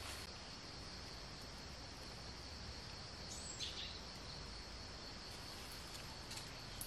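Steady high-pitched chorus of insects such as crickets, with a single short falling chirp about halfway through.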